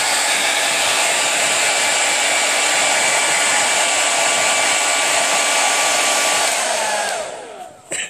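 Handheld hair dryer blowing steadily. Near the end it is switched off and the motor winds down with a falling whine as the noise fades away.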